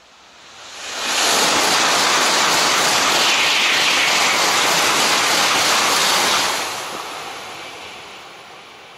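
Shinkansen bullet train passing through at high speed: a rush of noise that swells within about a second, stays loud for about five seconds, then fades away.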